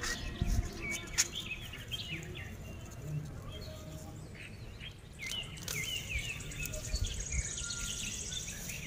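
Small birds chirping in quick short calls, with a high steady trill near the end. Hands handling plants and soil make rustling and a few sharp knocks while shallots are pulled from a grow bag.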